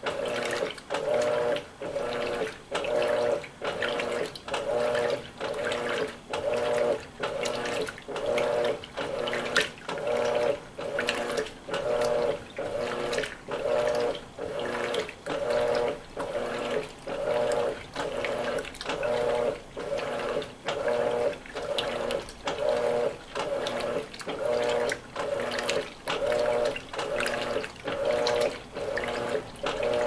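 Electrolux LWI13 washing machine agitating a load of towels in its wash cycle: water sloshing in even strokes about every 1.2 seconds, each with a motor hum.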